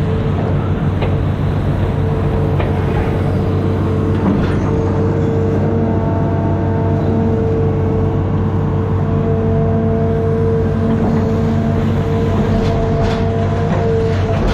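Amphibious excavator's diesel engine running steadily under work, with a steady whine over the engine note and a few faint knocks.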